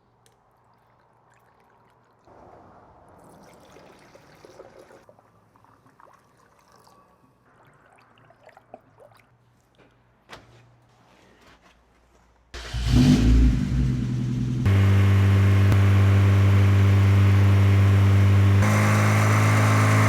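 Car engine cranked and started about twelve seconds in, catching and settling into a steady idle, run to burp trapped air from the cooling system after a new radiator was fitted. Near the end the engine note steps up slightly and gets a little louder. Before the start there are only faint handling knocks and rustles.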